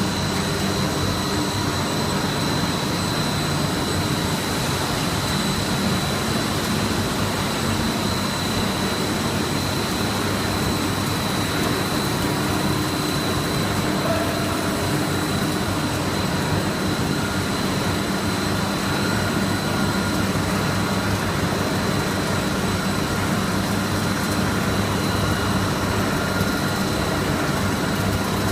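Snack pellet extrusion line machinery running steadily: a constant mechanical noise with a steady high whine over a low hum.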